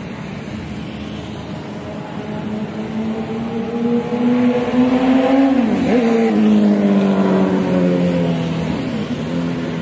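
A road vehicle passing close by. Its engine note climbs and grows louder as it approaches, then drops sharply in pitch as it passes about six seconds in and fades off.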